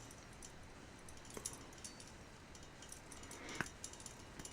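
Faint scattered clicks and light clinks from a keychain being handled as its Swiss Tech utility key is worked open. The clearest click comes about three and a half seconds in.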